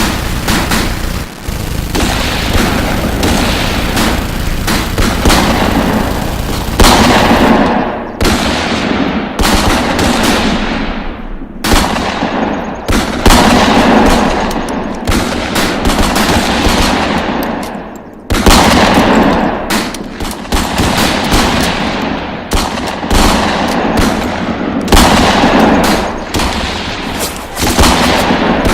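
Heavy gunfire sound effects: dense bursts of automatic fire mixed with single shots, with loud echoing blasts and barely a pause between them.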